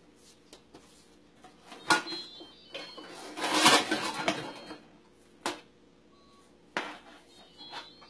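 Plates clattering against each other and the wire dishwasher rack as they are pulled out: a sharp clack about two seconds in, a longer rattle a second later, then two single knocks.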